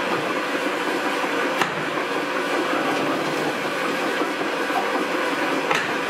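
Horizontal wine press machinery running steadily: a continuous mechanical rattle and hum, with two sharp clicks, about a second and a half in and near the end.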